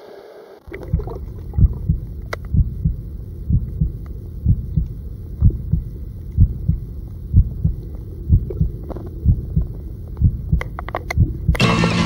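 Muffled underwater sound: low rhythmic thumps about twice a second over a dull rumble, with scattered faint sharp clicks. Music comes in just before the end.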